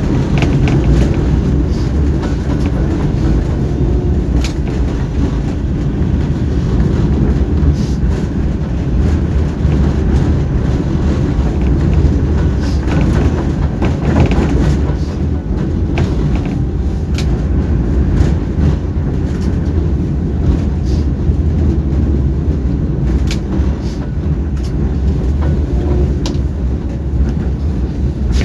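Tram in motion: steady low rumble of the car running along its rails, with scattered clicks and rattles.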